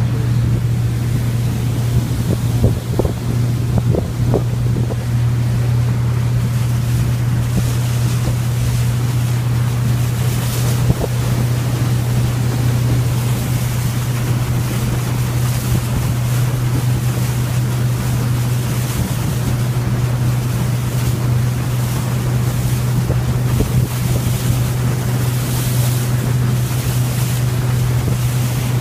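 Motorboat engine running at a steady cruising drone, with water rushing past the hull and wind buffeting the microphone in gusts.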